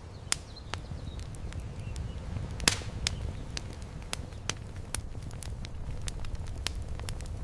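Fire crackling, with irregular sharp pops and snaps over a steady low rumble.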